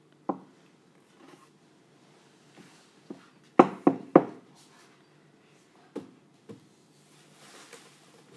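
Silicone spatula scraping and tapping against a stick blender's shaft and a plastic blending cup: scattered knocks, with three sharp taps in quick succession about three and a half seconds in.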